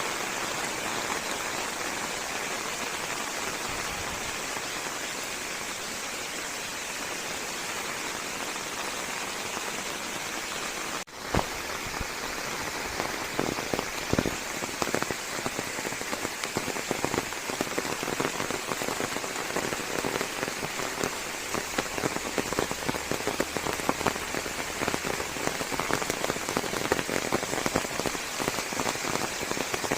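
Steady rain falling, an even hiss of drops. About eleven seconds in the sound briefly cuts out, then resumes with louder, closer individual drips and splats standing out over the hiss.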